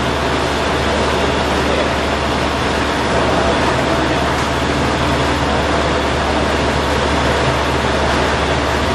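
J H Day single-shaft double ribbon blender running, its motor and ribbon agitator turning and tumbling a load of plastic balls in the stainless steel trough. A steady, even mechanical noise with a low hum beneath.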